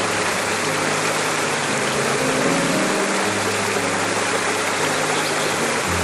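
Waterfall with a steady, even rush of falling water. Slow, held low music notes sit underneath and change every few seconds.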